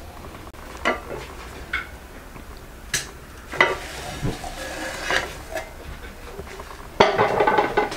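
Plates and tableware clinking and knocking in scattered short hits as a table is laid and a platter is set down. About seven seconds in, a louder, denser clatter starts.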